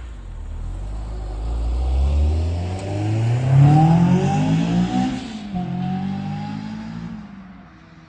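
Honda S2000's four-cylinder engine, breathing through a 60 mm test pipe into the stock exhaust, revving up under hard acceleration with a climbing pitch. The pitch drops once about five seconds in, as at an upshift, and the sound then fades away near the end.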